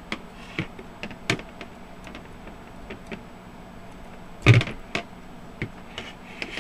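Scattered small clicks and knocks from handling a plastic digital multimeter case while its 9-volt battery is lifted out and pulled off its snap clip, with one louder knock about four and a half seconds in.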